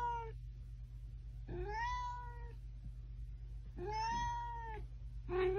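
Domestic cat meowing: a series of drawn-out meows about one every two seconds, each rising then falling in pitch.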